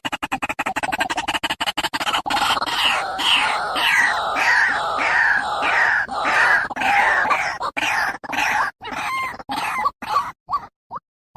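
White-breasted waterhen calling: a fast run of harsh clicking notes, then loud repeated falling notes about twice a second that break up into short separated calls near the end.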